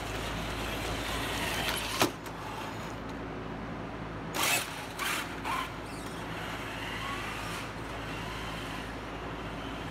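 Traxxas TRX-4 Bronco RC rock crawler driving, its electric motor and gears giving a steady whine. A sharp click comes about two seconds in, and a few short scuffs follow around the middle as it climbs down off a padded mat.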